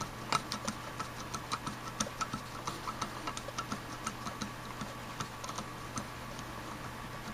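Screwdriver tip clicking and scraping against the metal of a Rochester Monojet carburetor body as it works at the small jet in the bottom of the accelerator pump well: light, irregular metallic ticks, a few a second, growing sparser near the end.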